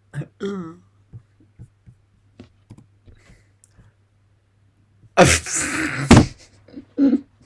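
A man's brief voiced murmur, then faint scattered clicks, then a loud, breathy vocal burst lasting about a second, with a short voiced sound after it.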